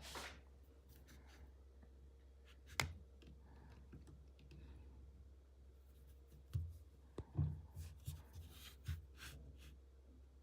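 Hands handling small objects: a single sharp click about three seconds in, then a run of clicks, taps and rustles over a couple of seconds, over a steady low hum.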